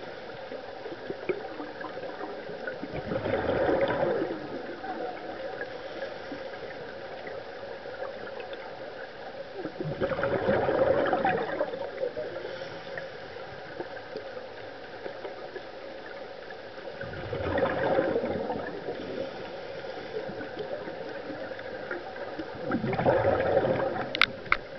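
A scuba diver's regulator heard underwater: four bubbling exhalations, one about every seven seconds and each lasting a second or two, over a steady underwater hiss.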